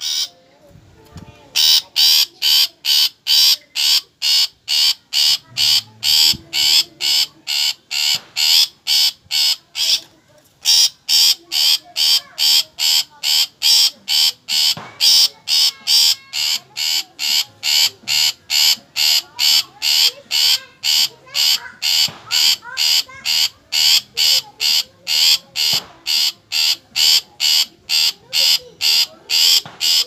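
Long-tailed shrike (cendet) giving a long series of harsh, rapidly repeated calls, about two to three a second, with a short pause just after the start and another about ten seconds in.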